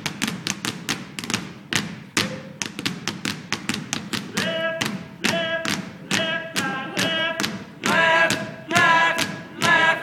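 Several basketballs bounced in unison on a stage floor, beating out a rhythmic percussion pattern of sharp thuds, several a second. From about halfway through, held pitched tones join over the bouncing and grow fuller toward the end.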